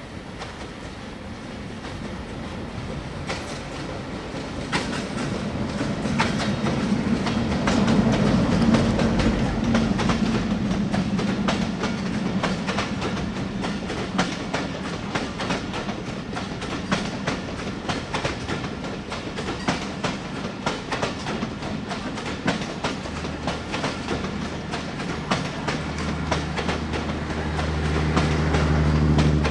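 A diesel-hauled express passenger train passing close by. The locomotive's engine hum swells to its loudest about eight seconds in as it goes past. Then the coaches' wheels click steadily over the rail joints in a clickety-clack, and a low steady hum grows near the end.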